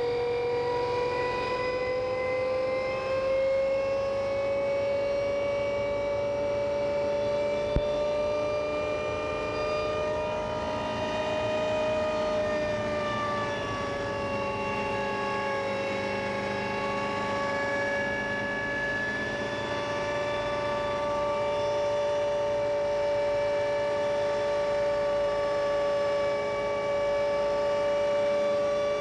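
Hummingbird helicopter with a Donovan drag-race V8 engine, heard from the cockpit in flight: a loud, steady whine made of several tones. It rises slightly in pitch over the first few seconds, dips a little about halfway through, then holds steady. A single sharp click comes about eight seconds in.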